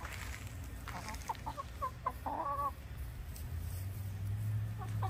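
Chickens clucking: a run of short clucks about a second in, ending in a longer call, over a steady low hum that grows louder near the end.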